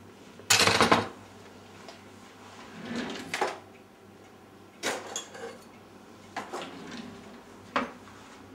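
Kitchen clatter of a drawer and utensils: one loud rattle about half a second in, then a few lighter knocks and clinks spread through the rest.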